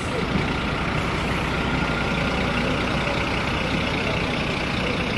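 Fire engine's diesel engine running steadily at idle.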